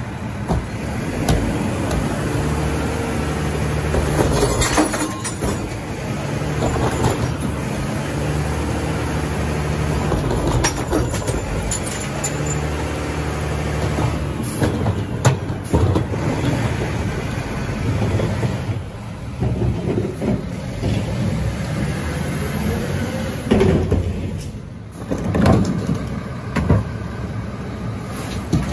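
Mack LR rear-loader garbage truck's diesel engine running with a steady hum that holds for several seconds at a time, with scattered knocks and clanks.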